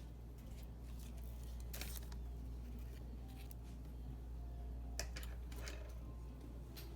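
A few light, sharp clicks of small hand tools working on a wristwatch during disassembly, over a steady low hum.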